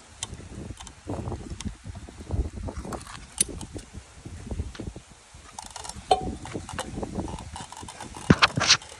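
Irregular clicks, knocks and rattles of rigging gear being handled, with a short squeak about six seconds in and a few sharper clicks near the end.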